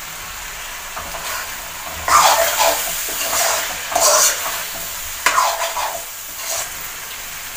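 Spatula stirring and scraping chicken masala around a metal kadai, about five scraping strokes from about two seconds in, over a steady sizzle of the masala frying on raised heat.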